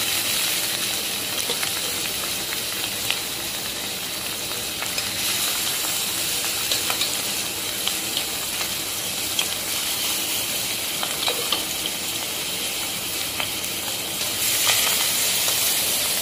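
Marinated rohu fish pieces with onion and spices sizzling as they fry in hot oil in a kadai, with a few light scrapes and taps of a steel spatula. The sizzle grows louder near the end.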